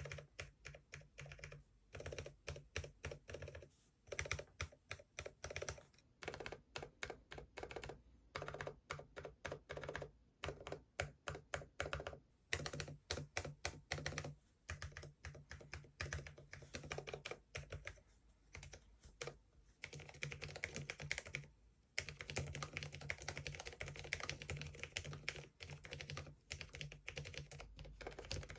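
Typing on a Cherry MX 10.0 LP low-profile mechanical keyboard: bursts of key clacks with short pauses between them, turning into fast continuous typing about twenty seconds in.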